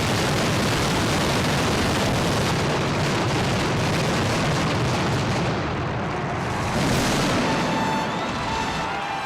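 Firework maroons of a mascletà exploding in a dense, continuous barrage, the thundering final flourish, merging into one steady roar with a last surge about seven seconds in. It thins near the end as thin high whistles come in.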